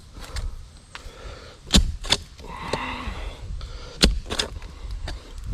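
A digging tool striking into the soil of a post hole, in two pairs of sharp hits about a third of a second apart, the second pair about two seconds after the first.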